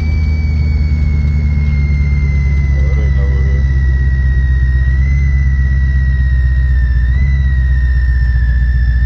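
Steady low engine and road rumble inside the cabin of a moving 1996 Chevrolet Caprice, with a thin high whine that slowly falls in pitch.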